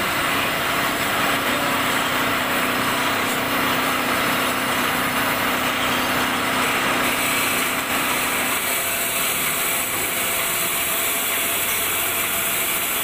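Metal lathe running, with a tool cutting an oil groove inside a spinning bronze bush: a steady machine hum with cutting noise. The lathe's low steady note drops out about two-thirds of the way through as the chuck comes to a stop.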